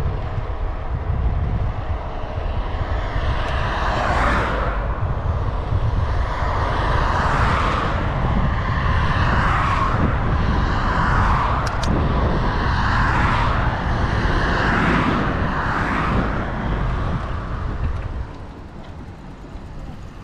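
Cars passing one after another on the road, each a swell of tyre and engine noise that rises and fades, several in a row, over a steady rumble of wind on the microphone while cycling. The traffic noise falls away near the end.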